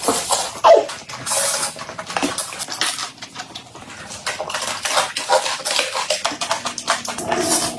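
Close-miked eating sounds: chewing with many short crisp clicks and smacks, and clinks of cutlery on a dish.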